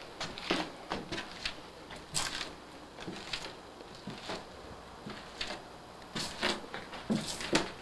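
Footsteps on a bare wooden staircase: irregular knocks and scuffs of shoes on the old treads, roughly one or two a second, with a louder cluster near the end.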